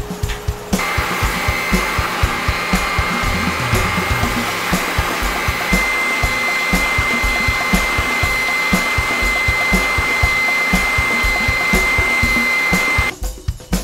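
Benchtop spindle sander running with a steady high whine as a curved wooden mug handle is sanded against its drum. It starts about a second in and stops shortly before the end.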